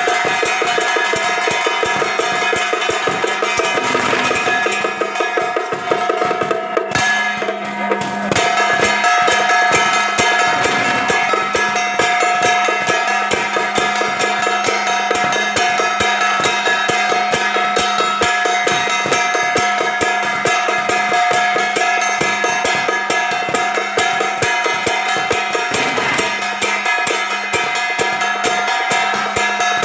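Temple procession percussion: rapid, continuous drumming with steady tones held over it.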